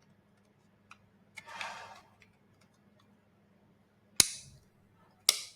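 Two sharp snapping clicks about a second apart, made by a ring being fitted onto a robot-head gear. A brief scrape and a faint tick come earlier.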